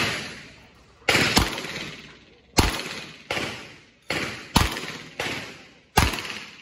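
Smith & Wesson 929 Jerry Miculek 9mm revolver being fired rapidly, about eight shots at uneven spacing of a half to one second. Each report trails off in an echo.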